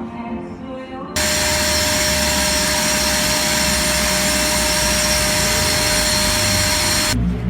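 An electric power tool motor running steadily with a high whine. It starts abruptly about a second in and cuts off just as abruptly near the end.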